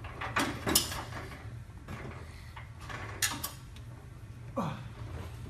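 A few sharp clicks and knocks, two close together near the start and two more a little after the middle, over a low steady hum.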